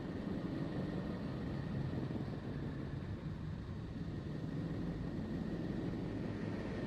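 The 'sound of Neptune' played as a space recording: a steady, rumbling noise drone with a faint high tone held through it.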